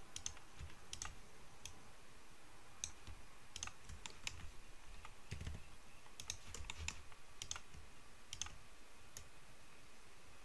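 Faint, irregular clicking of a computer mouse and keyboard keys, about twenty clicks spread unevenly.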